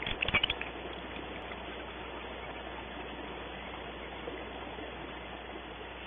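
A quick cluster of knocks and scrapes in the first half second, a barn owl's feet and body moving against the wooden nest cavity, then a steady hiss.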